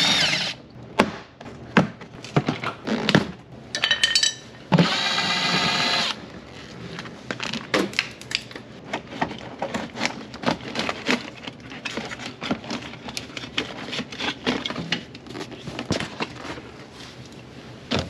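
A cordless drill-driver whines for about a second, backing out a door-card screw. It is followed by many small clicks and knocks as the door panel is worked off its plastic snaps and lifted away.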